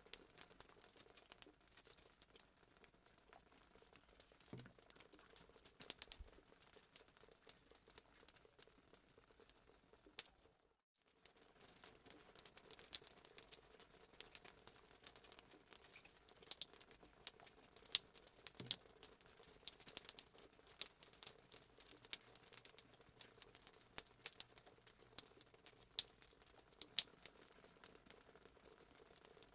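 Fireplace crackling sound effect: a fire's dense, irregular pops and crackles over a soft hiss, cutting out completely for a moment about eleven seconds in before starting again.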